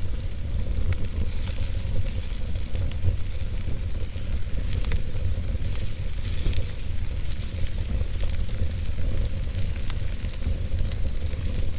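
Wood fire crackling in a fireplace: scattered small crackles and pops over a high hiss, with a steady low rumble underneath.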